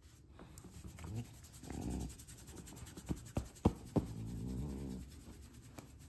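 A hand rubbing and scratching an English bulldog's belly fur, with the dog giving two drawn-out grunts, about two seconds in and again around four seconds. A few sharp clicks fall between the grunts.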